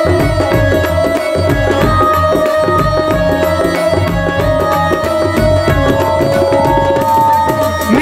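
Instrumental interlude of live Punjabi folk music: tabla playing a fast, steady rhythm over held tones from a melodic instrument.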